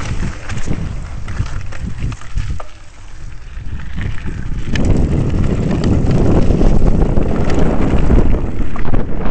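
Mountain bike rolling over a gravel track, with tyre crunch and rattling clicks from the bike and camera mount, under wind buffeting the microphone. About halfway through, the wind rumble gets much louder and covers most of the rest.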